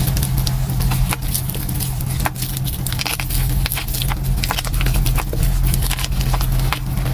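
Hands squeezing and kneading wet gym chalk paste full of crumbled chalk chunks: squelching and crunching with many quick, sharp little crackles. A steady low hum runs underneath.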